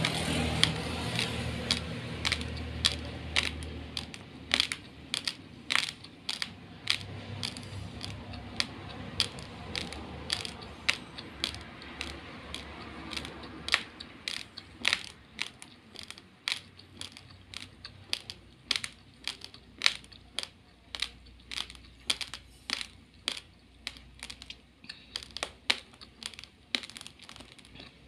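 Hard, uncooked long-grain rice being crunched between the teeth: a steady run of sharp crunches, about two or three a second, louder at the start.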